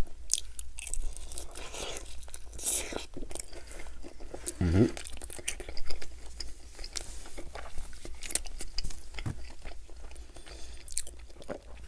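Close-miked eating: wet chewing, lip smacks and sucking as meat and creamy garlic parmesan sauce are eaten off a chicken drumstick bone, full of small crackly mouth clicks. A short hummed "mm" comes a little before the middle.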